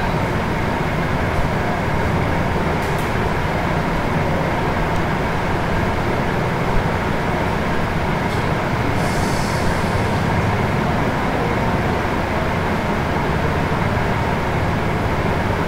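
Steady, fairly loud mechanical hum and hiss with no speech, with a brief high scratch about nine seconds in.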